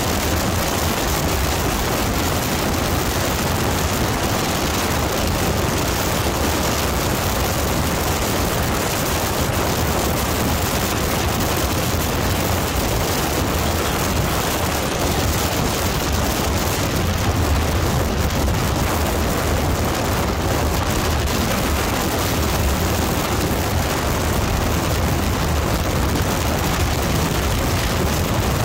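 Steady wind rush buffeting the microphone of a sport motorcycle riding at highway speed: a dense rushing noise with a heavy low rumble and no clear engine note standing out above it.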